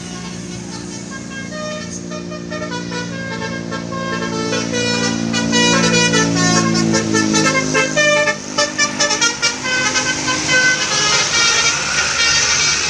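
Tour bus telolet basuri air horn playing a stepped multi-tone melody, growing louder as the bus comes closer. In the second half it breaks into rapid, rhythmic toots over the bus's engine.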